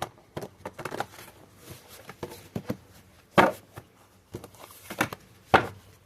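A deck of oversized tarot cards being shuffled and handled: a run of short slaps and riffles, the loudest about three and a half and five and a half seconds in.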